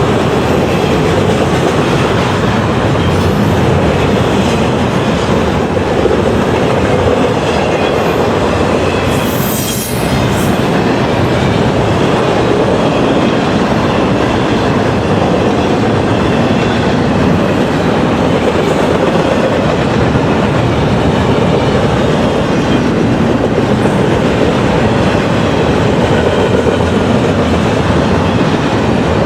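Freight train cars rolling past in a steady, continuous rumble, their wheels clacking over the rails, with a short high hiss about ten seconds in.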